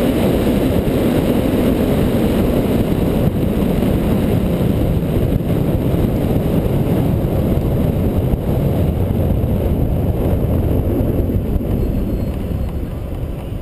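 Car driving at speed, heard from a camera mounted on its hood: a steady rush of wind and road noise with the engine's drone underneath, getting quieter near the end.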